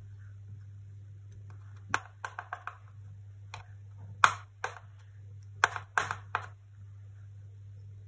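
Metal tweezers clicking and tapping, about ten sharp clicks in short groups, as sprouted tomato seeds are set into the cells of a plastic seedling cassette. A steady low hum runs underneath.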